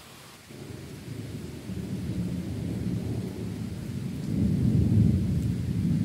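Rolling thunder: a low rumble that sets in about half a second in, builds to its loudest about five seconds in, and is still sounding at the end.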